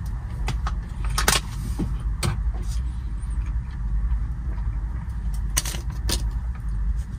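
DAF XF 510 truck on the road, heard inside the cab: a steady low engine and road noise, with a few short sharp clicks and rattles, the loudest a little over a second in and two more near the end.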